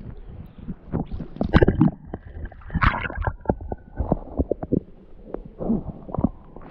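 Sea water sloshing and gurgling around a camera held half-submerged at the surface, with irregular splashes and small sharp knocks.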